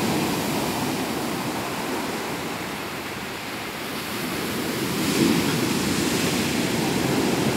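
Breaking surf of a rough sea, a steady rush of waves onto the beach. It eases a little about three seconds in and swells again around five seconds.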